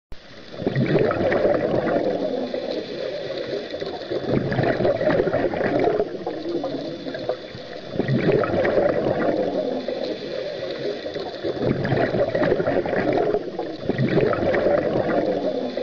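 Bubbling, gurgling water that swells and fades in waves about every three to four seconds.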